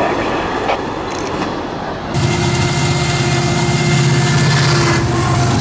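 Diesel freight locomotives running under load as they pass close by. A general rumble at first gives way, about two seconds in, to a sudden loud, steady engine drone over rail noise.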